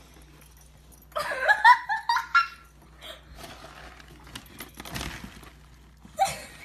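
A person laughing in a quick run of high bursts, followed by small clicks and rustling as a dog roots through a kitchen trash can.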